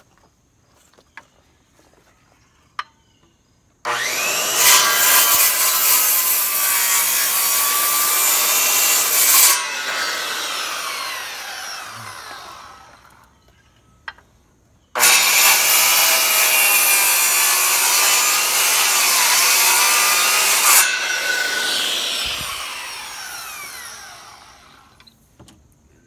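Corded circular saw plunge-cutting into a pine 2x6 board, twice. Each run starts abruptly, about four and fifteen seconds in, cuts steadily for several seconds, then winds down with a falling whine as the trigger is released.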